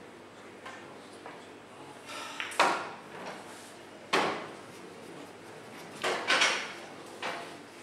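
A handful of sharp knocks and clacks in a room, the loudest about two and a half and four seconds in, then two in quick succession about six seconds in and a smaller one near the end.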